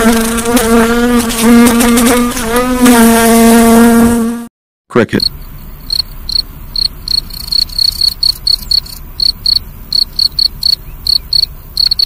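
Housefly wings buzzing loudly and steadily, the tone wavering slightly, until it cuts off a little over four seconds in. After a short gap, a cricket chirps in short high pulses, several a second, that go on to the end.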